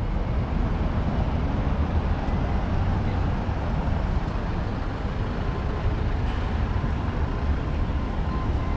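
Busy city street ambience in the rain: a steady rumble of road traffic with a continuous hiss.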